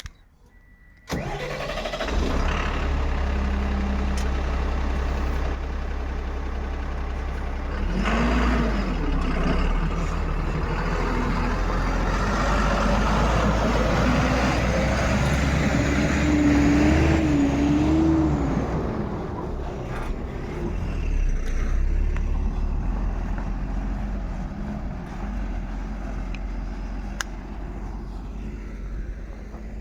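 A heavy diesel engine of the backhoe loader or dump truck comes in suddenly about a second in and runs steadily, its pitch rising and falling in the middle as it is worked harder.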